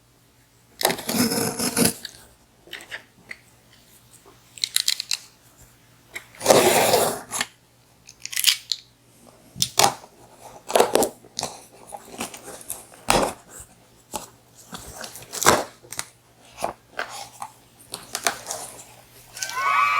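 A mailed package being opened by hand: its packaging rustles, crinkles and tears in irregular bursts with short clicks between them. The longest bursts come about a second in and around six to seven seconds in.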